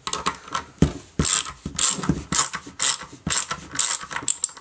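Ratchet screwdriver clicking as it loosens a screw terminal's screw on a metal avionics box: a run of sharp ratcheting clicks, about two a second.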